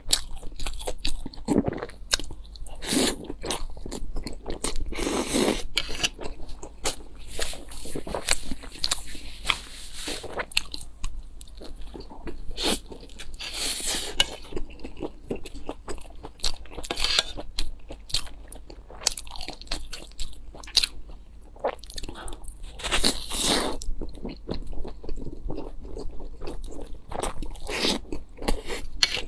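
Close-miked eating: repeated crunchy bites and chewing, many short sharp crunches with a few longer, louder stretches.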